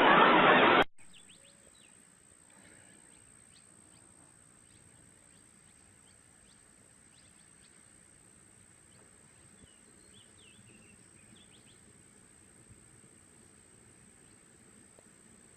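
A loud rushing noise cuts off abruptly under a second in. It leaves a faint, steady high-pitched insect drone with scattered small bird chirps over it.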